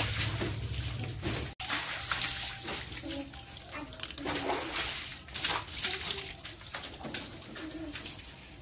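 Water running and splashing, an uneven hiss with many short spatters, with faint voices in the background. A low steady hum cuts off abruptly about a second and a half in.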